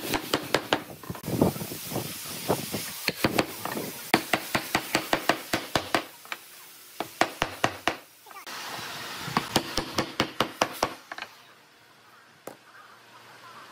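Wood being struck repeatedly with a hand tool: runs of quick, sharp knocks, several a second, with short pauses between the runs. The knocks thin out and it goes quieter near the end.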